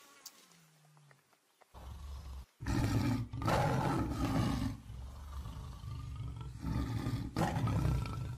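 Tiger growling and roaring in loud, rough bouts, starting about two seconds in after a quiet opening, with another loud bout near the end.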